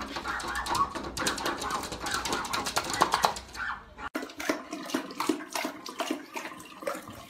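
A small white dog scratching at a sliding glass door, a fast run of clicks. Just after the cut, about four seconds in, two dogs lap water from a running bathroom-sink faucet: the tap's water runs under wet licking clicks.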